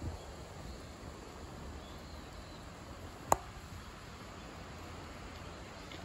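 Quiet outdoor background with a faint steady hiss, broken by one sharp click about three seconds in.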